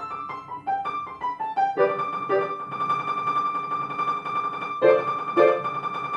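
Grand piano being played: a quick run of single notes, then a high note repeated rapidly and held on, with lower chords struck beneath it twice.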